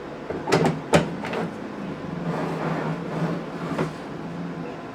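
Plastic blender lid and container being handled: a few sharp clicks and knocks in the first second and a half, then rubbing and rustling.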